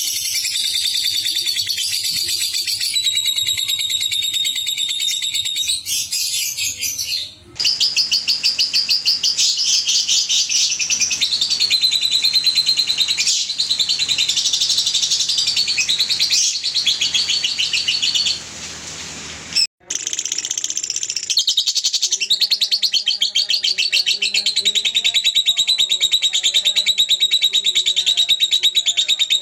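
Lovebirds chattering in long, fast, high-pitched rattling trills, the 'ngekek' call, in three takes that break off abruptly about 7 and 20 seconds in.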